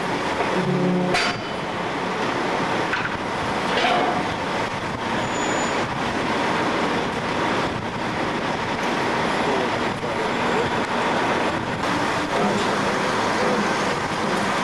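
Steady mechanical din of a car ferry unloading at the dock, with engines and vehicles running. About a second in, a short low steady tone like a horn ends.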